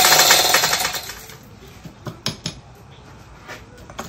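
Metal parts and tools clinking as an outboard powerhead's crankshaft assembly is worked into its block by hand: a loud burst of fast metallic rattling about a second long at the start, then a few separate sharp clinks.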